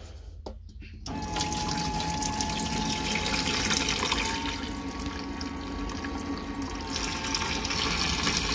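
Water from a camper faucet starts suddenly about a second in and runs steadily into a stainless steel sink, with a steady hum from the small electric pump that draws it from the fresh-water canister.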